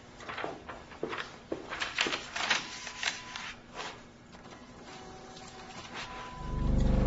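Film sound effects: a series of sharp clicks and knocks, then a deep low tone that swells up loudly about six seconds in.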